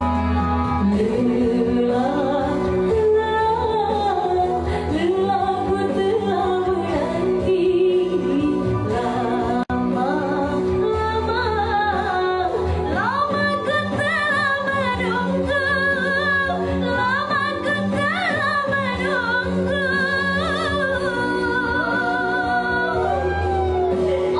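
Women singing over a music accompaniment, in long ornamented lines with vibrato. The voice climbs to higher, held notes about halfway through.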